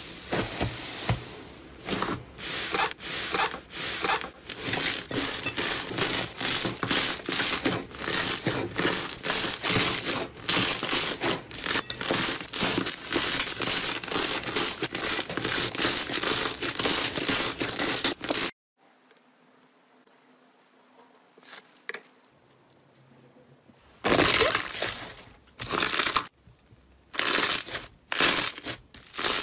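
Slime being squeezed and worked by hand, a dense, fast run of crackling and popping. It cuts off abruptly after about eighteen seconds, leaving a few seconds of near silence with faint ticks, then the crackling squishes start again in separate bursts.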